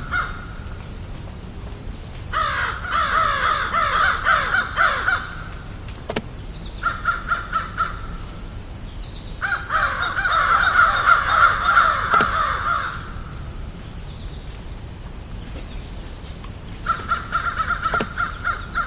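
Crows cawing in four bursts of rapid, repeated calls, the longest about three seconds, with gaps between them, over a steady high-pitched hiss.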